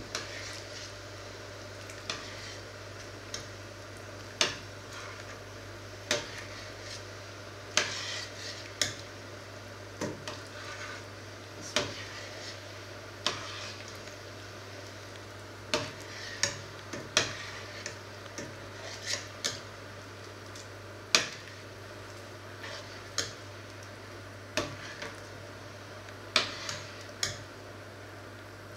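Metal ladle stirring soup in a stainless steel pot, clinking against the pot's side and rim at irregular moments, roughly every second or two. A steady low hum runs underneath.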